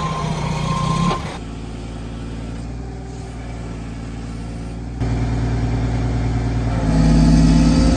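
Heavy diesel engine of a Mack crane truck running, with its reversing beeper sounding twice in the first second. After a cut the engine runs on steadily, getting louder about five seconds in and loudest near the end.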